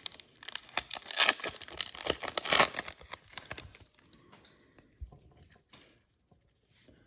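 Foil wrapper of a trading-card pack being torn open and crinkled, loudest in the first three seconds, then a few soft rustles and taps as the cards come out.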